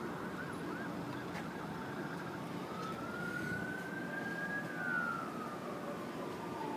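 Emergency vehicle siren over steady outdoor background noise: a quick warbling yelp at first, then a slow wail that rises, peaks about two-thirds of the way through and falls again.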